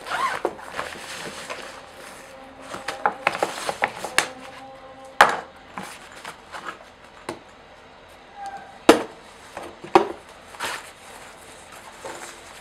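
Rustling of a fabric carry bag as AeroPress coffee maker parts are taken out, then the plastic parts clicking and knocking against a countertop, with sharp knocks about five, nine and ten seconds in.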